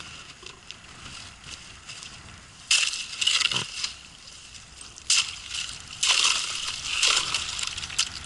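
Ice crunching and breaking up against a boat's hull as the boat pushes through it, with water sloshing. There are loud sudden bursts of cracking about three seconds in and near five seconds, then a longer crunching run toward the end.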